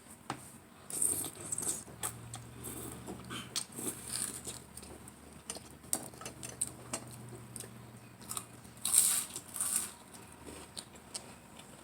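Close-up eating sounds: chewing and mouth smacks with scattered light clicks, and a louder noisy stretch about nine seconds in.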